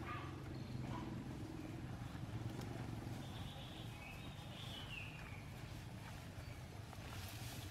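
A steady low motor drone, like an engine running nearby, with a bird's chirping call about three to five seconds in.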